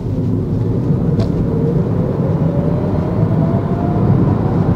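Peugeot e-208 GT's electric drive motor whining under hard acceleration, its thin tone rising steadily in pitch as the car gains speed, over the steady rumble of tyres and road heard from inside the cabin.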